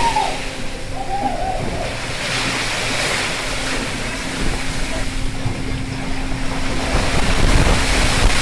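Sea wash and wind around a fishing boat in heavy seas, swelling twice as waves come through, with a steady hum from the boat underneath.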